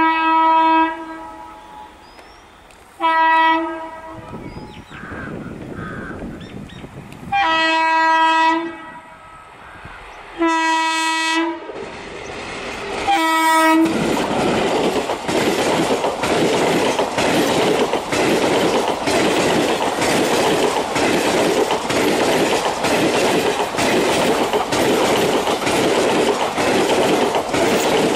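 WAP-4 electric locomotive sounding its horn five times in single-pitched blasts while approaching. From about 14 s in, the locomotive and its coaches pass close by with steady loud rumbling and rhythmic clickety-clack of the wheels over rail joints.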